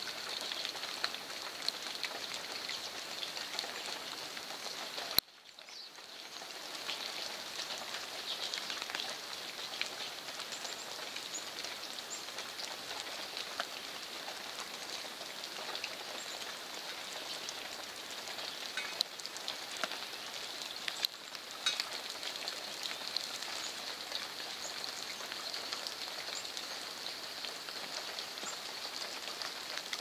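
Steady rain falling, with many small drop ticks through it. A single sharp click about five seconds in, after which the sound drops away briefly and fades back.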